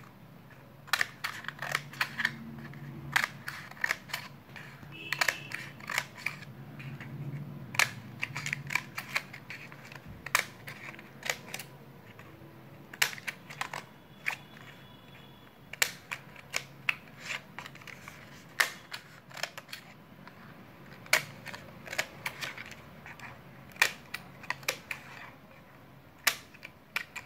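Scissors snipping through a paper cup's wall, cutting it into strips: sharp, irregular snips, a few a second, with short pauses between runs of cuts.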